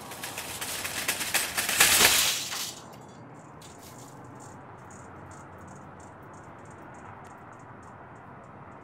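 Wire shopping cart rattling loudly as it rolls over concrete, stopping abruptly after about two and a half seconds, followed by a run of light ticks that slow and fade as a wheel spins down.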